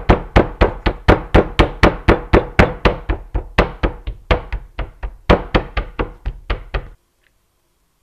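Raw chicken breast being pounded flat on a wooden cutting board: a fast, even run of heavy thuds, about three or four a second, that stops abruptly about seven seconds in.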